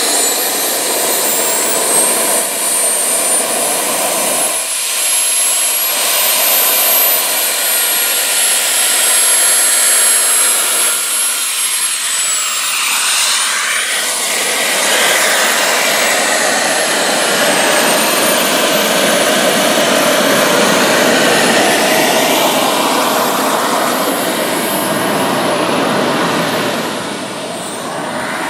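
Twin Jet Central Super Eagle model jet turbines running on a large RC F-4 Phantom as it taxis: a high, steady whine over a jet rush. The whine dips in pitch and recovers about halfway through, and the sound fades near the end as the jet rolls away.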